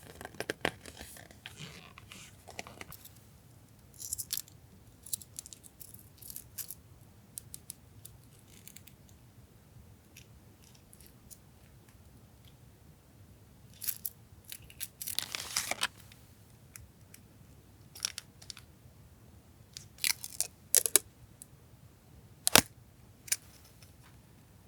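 Paper goods being handled: scattered short bursts of paper rustling and crinkling with light taps, a longer rustle about fifteen seconds in and a sharp click near the end.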